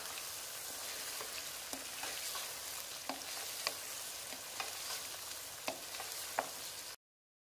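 Mutton pieces, onion and spices sizzling in hot oil in a non-stick wok while being stirred with a spatula: a steady sizzle, with the spatula's light knocks and scrapes on the pan about once a second. The sound cuts off abruptly about seven seconds in.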